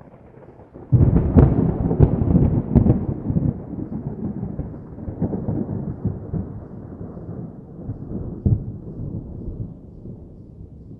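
Thunder: a sudden loud crackling clap about a second in, with several sharp cracks, then a long rolling rumble that slowly fades, broken by one more crack later on.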